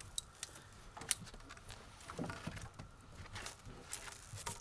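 Faint water splashing and dripping around a fishing net at a boat's side, with scattered small clicks and ticks and a slightly louder one about a second in.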